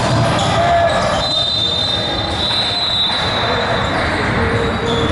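Basketball game sounds in a large gym: a ball bouncing on the hardwood court, high sneaker squeaks in the middle, and players and spectators calling out in the background.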